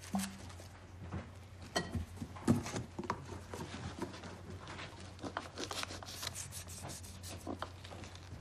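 Cardboard boxes being pulled open and rummaged through: scattered scraping, rubbing and tearing with short knocks, busier in the second half.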